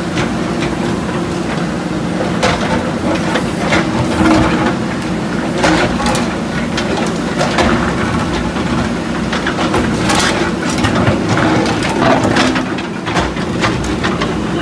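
JCB 3DX backhoe loaders' diesel engines running steadily under load, with repeated cracks and crunches as concrete and masonry break under the buckets, several sharp impacts a second or two apart.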